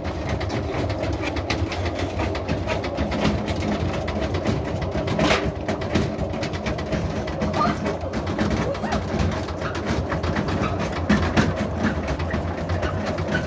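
Stripped-down front-loading washing machine running at low drum speed, with a steady hum and fast, irregular clattering and knocking. The machine is failing at low speed.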